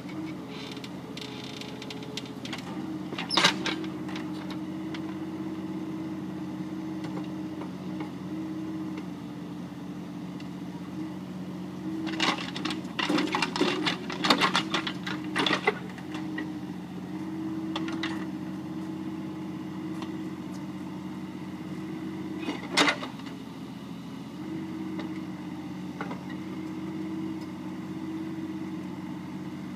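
Mini excavator engine running steadily, with its pitch shifting slightly now and then, and sharp metallic knocks and clanks: one early, a cluster of them midway, and one more later.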